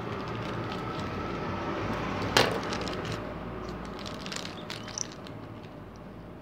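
Small plastic figure packaging being handled and opened by hand: scattered light clicks and crinkles, with one sharp plastic crack about two and a half seconds in, over a steady low background rumble that swells a little and then fades.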